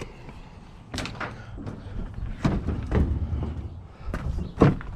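Car door being handled: a few separate clunks and knocks, the loudest near the end.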